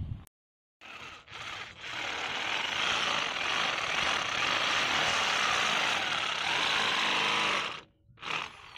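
Handheld electric drill boring a hole through a bamboo pole, the bit cutting into the bamboo wall. After a couple of short bursts about a second in, it runs steadily for about six seconds, then stops near the end.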